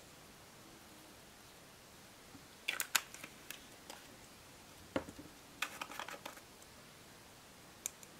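Small plastic jars of embossing powder being handled: short clusters of sharp clicks and taps as a lid is twisted and the jars are tapped and set down, about three seconds in, again around five to six seconds, and near the end.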